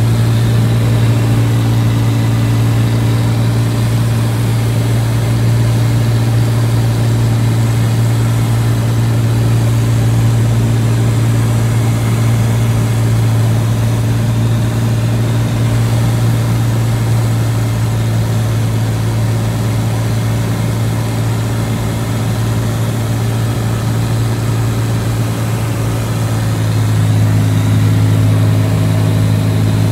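Cessna 206's six-cylinder piston engine and propeller running steadily in cruise, heard inside the cabin. About 27 seconds in, the note drops slightly in pitch and grows a little louder.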